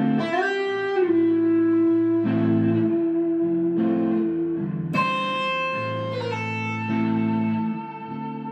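Background music led by a guitar, playing long held notes, with a note sliding up in pitch at the start.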